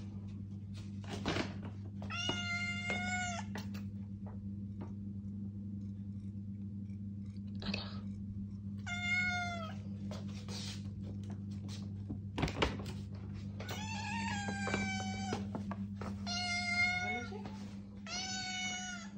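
Domestic cat meowing about five times, each meow rising then falling in pitch, with a couple of thuds between, over a steady low hum.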